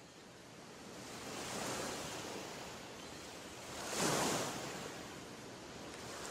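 A rushing noise that swells and ebbs like surf, rising at first and surging loudest about four seconds in.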